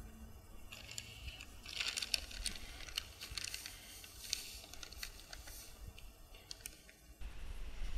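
Plastic bag of Postcrete crinkling and rustling as it is torn open and tipped, the dry post-fix mix pattering into the hole around the clothesline pole. The crackle starts about a second in, is loudest around two seconds in, and stops about seven seconds in.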